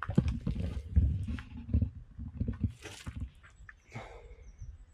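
Low rumble of wind buffeting the microphone, with scattered crunches and knocks of steps on rubble and dry twigs.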